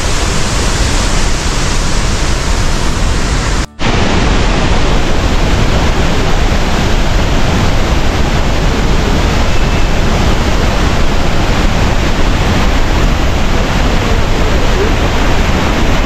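Loud, steady rush of a large, tall waterfall plunging onto rocks and throwing up spray. The sound cuts out for a split second a little under four seconds in.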